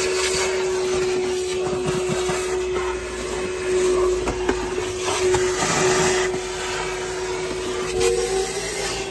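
Vacuum cleaner running with a steady whine and rush of air, its hose nozzle sucking along a car's bare floor pan. The sound swells and eases several times as the nozzle is worked into the corners.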